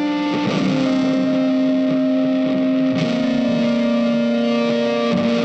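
Background music: slow guitar with effects, holding long sustained notes that change every two to three seconds.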